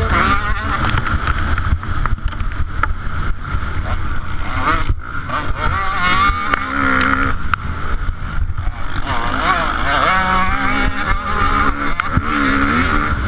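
KTM motocross bike's engine heard close up onboard while racing, revving up and dropping back again and again as the rider accelerates and shifts through turns and straights.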